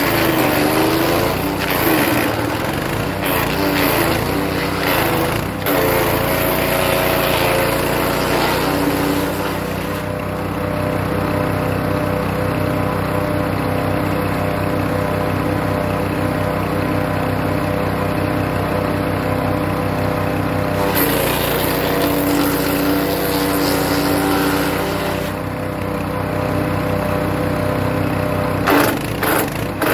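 Hecht 6208 wood chipper running and chipping birch branches. Its engine note dips and wavers under load during noisy crunching stretches early on and again about two-thirds of the way through. Between these it runs steadily, and sharp knocks of wood being cut come near the end.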